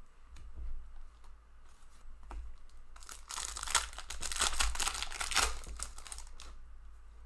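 A foil trading-card pack being torn open and its wrapper crinkled by hand, loud for about three seconds in the second half, with a few light clicks before it.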